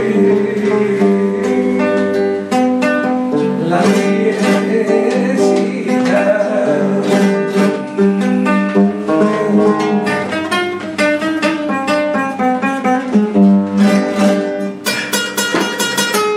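Flamenco acoustic guitar playing a falseta in a serrana: runs of single plucked notes, then a burst of rapid rasgueado strums about a second and a half before the end.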